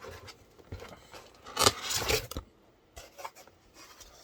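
Packaging rustling and scraping as items are handled in a motherboard box, with a longer, louder rustle about a second and a half in and a few light clicks near the end.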